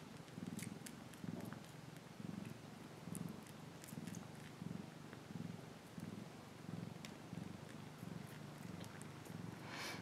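Maine coon mother cat purring as her kittens nurse, a low rumble that swells and eases with each breath, about every three-quarters of a second. Faint small ticks sound over it.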